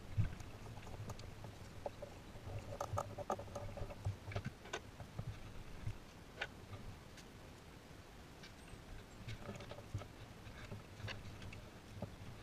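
Hands and a hand tool working among plastic engine-bay parts, hoses and wiring: scattered light clicks, taps and scratchy rustles. There is a small knock just after the start, a busier stretch about three to five seconds in, and a sharper click about halfway through.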